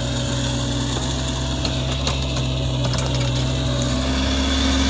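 Mini excavator engine running steadily, its note shifting about four seconds in.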